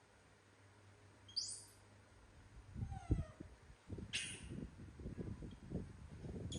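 Short high-pitched squeals from a young animal, one about a second and a half in and another about four seconds in, with a lower falling cry between them and soft bumps and rustles of movement.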